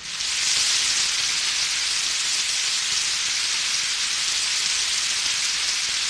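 A steady, even hiss of noise, like static or rain, with no music or beat.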